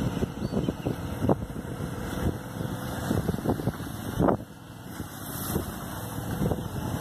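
A floating tractor's engine running as the craft churns through lake water, pushing a mass of cut reeds, with irregular sharp knocks and buffeting throughout.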